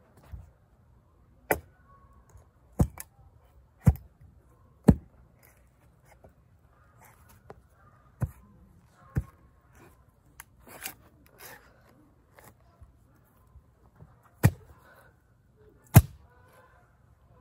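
Axe splitting firewood: sharp chopping strikes of the blade into wood, four about a second apart, then two pairs of blows later on.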